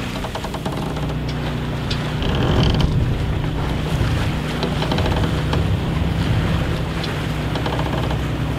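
Sailing yacht moving through choppy water: water rushing along the hull and wind on the microphone, over the steady low hum of the onboard generator.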